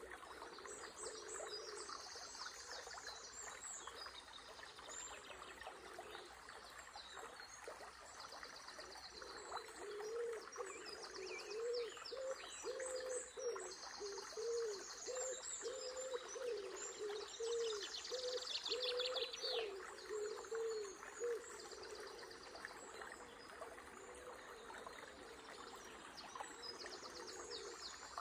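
Birds chirping and trilling over the steady hiss of running water. In the middle stretch a low cooing call is repeated about a dozen times, roughly once a second, and is the loudest sound.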